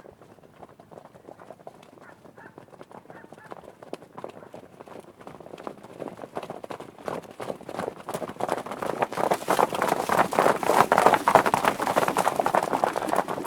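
Horses galloping, a rapid drumming of hooves on the ground. The hoofbeats grow steadily louder from about halfway through and are loudest near the end.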